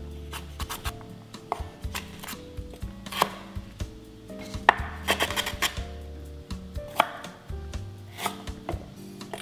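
Chef's knife chopping chillies, garlic and ginger into small pieces on a wooden cutting board: irregular knife strokes on the board, with a quick run of cuts around the middle.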